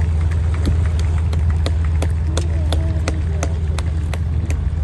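A biplane's engine running with a steady low drone, with an even ticking about three times a second over it.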